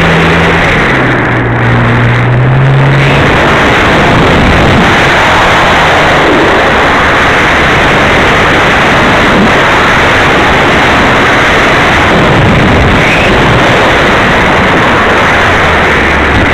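Loud, steady rush of wind and propeller noise picked up by the onboard camera of a flying radio-controlled model airplane. A low motor hum drops in pitch about a second in and fades under the rush by about three seconds in.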